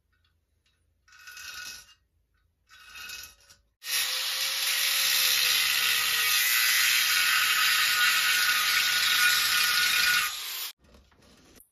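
Corded angle grinder cutting through the steel shell of an emptied propane tank with its cutoff wheel. After two brief bursts, the blade bites in for about seven seconds of steady, high-pitched cutting noise, which stops abruptly near the end.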